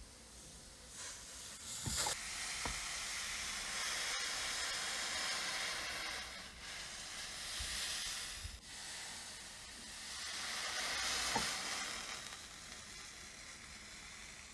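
Hissing that swells and fades in two long passes, with a few sharp knocks.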